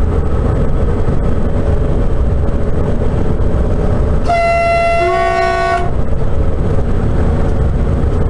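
Horn of a Sapsan (Siemens Velaro RUS) high-speed train, heard inside the driver's cab, over the steady rumble of the train running at speed. About four seconds in, the horn gives one blast of about a second and a half: a higher note alone at first, then a lower note joining it.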